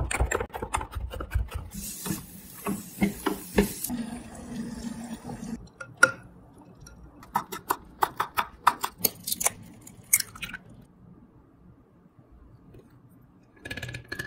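A chef's knife chopping on a wooden cutting board: quick chops mincing garlic, with a brief hiss, then a sharp knock about six seconds in, then a run of about eight chops through fresh coriander leaves. The chopping stops about ten seconds in.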